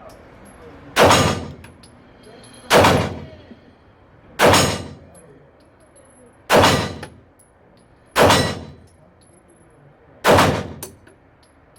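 Smith & Wesson M&P 2.0 Metal pistol firing six single shots at a steady pace, about one every one and a half to two seconds, each with a brief echoing tail.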